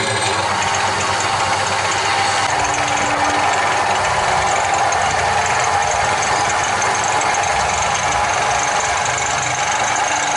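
Homemade bench drill's motor running steadily at speed, a constant loud whirring hum.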